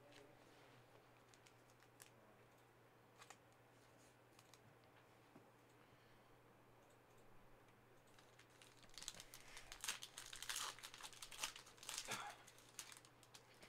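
Near silence with a few faint ticks, then for about three seconds near the end a Panini Prizm card pack's wrapper crinkling and tearing as it is opened.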